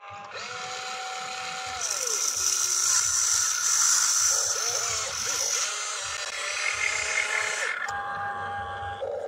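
Electric motors and gearboxes of an RC excavator whining as the boom, arm and cab move, each whine holding a steady pitch and then sliding down as the movement stops. A high hiss runs alongside from about two to six seconds in.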